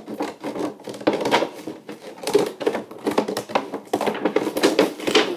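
Cardboard toy box being handled and cut open with scissors: irregular scraping, rustling and sharp clicks.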